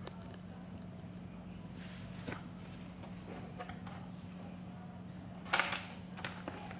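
Plastic laptop bottom cover being set in place and pressed down: a faint click about two seconds in, then a short cluster of clicks and knocks about five and a half seconds in, over a steady low hum.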